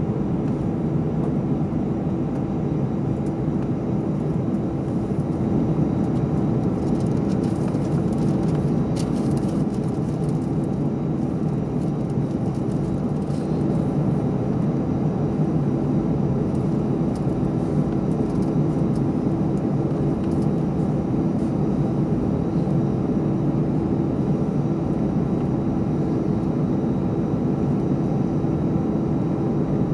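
Steady cabin drone inside an Airbus A319 on the ground: a constant low hum tone over an even rumble, holding level throughout.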